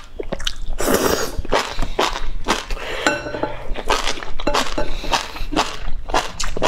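Close-miked wet chewing and slurping of enoki mushrooms in spicy broth, a quick run of smacking mouth clicks, with a longer slurp about a second in.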